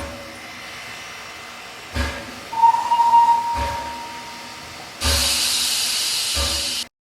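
Steam locomotive sound effects: a single steady whistle blast starting about two and a half seconds in, then a loud hiss of escaping steam near the end that cuts off suddenly. Several dull low thumps fall in between.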